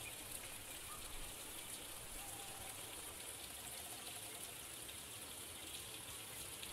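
Faint, steady rushing hiss of outdoor ambience, with no distinct events.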